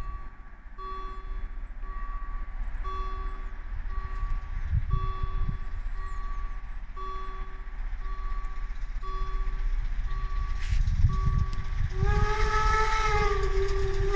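Level-crossing warning signal sounding a tone about once a second while a steam train approaches, with a low rumble slowly growing louder. About twelve seconds in, the steam locomotive's whistle gives a long blast that rises and falls slightly in pitch.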